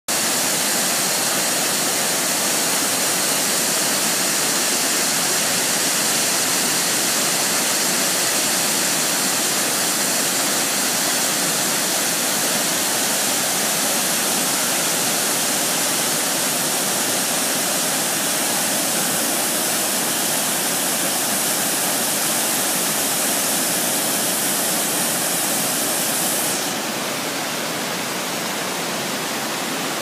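Waterfall pouring into its pool, a steady rush of falling water. Near the end the high hiss drops away and the rush grows slightly quieter.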